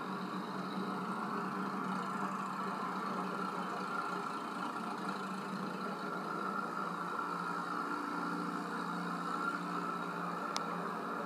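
Antique farm tractors driving past on a highway, their engines running steadily, heard played back through a TV speaker. One short click near the end.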